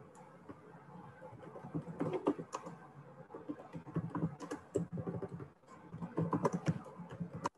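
Typing on a computer keyboard: irregular runs of quick key clicks that cut off abruptly near the end.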